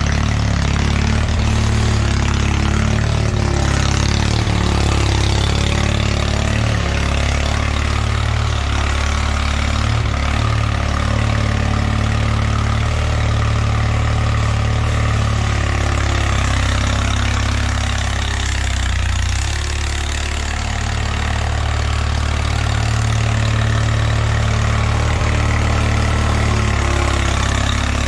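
Engine of a 1979 Bolens HT-23 garden tractor, a 23 hp Kohler K582 opposed twin, running steadily, easing off slightly about two-thirds of the way through.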